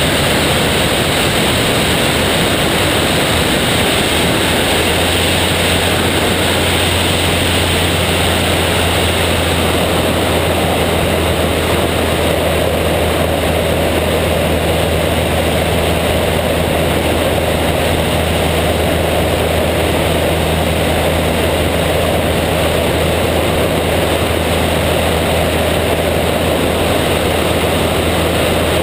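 Small single-engine biplane's engine and propeller running steadily at power, with heavy wind rush over the wing-mounted microphone. A steady low engine drone settles in about four seconds in.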